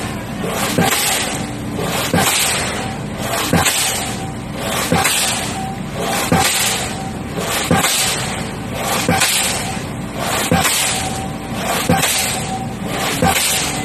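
Crane-suspended pile hammer striking a concrete pile as it is driven into the ground: loud, evenly spaced blows about every second and a half, around ten in all, over a steady mechanical hum.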